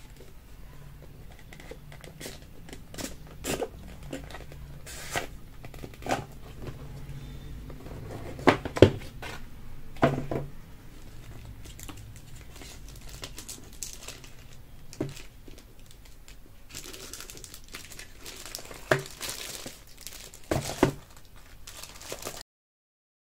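Packaging being handled and unwrapped by hand: plastic and paper crinkling and tearing, with scattered sharp clicks and taps. The sound drops out completely for about a second near the end.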